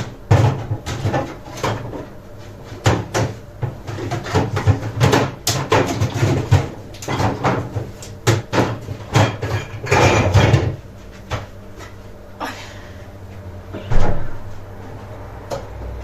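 A honey, butter and black pepper mixture boiling in a cezve on the stove, bubbling and popping thickly and irregularly for about ten seconds, then settling down. A single sharp knock comes near the end.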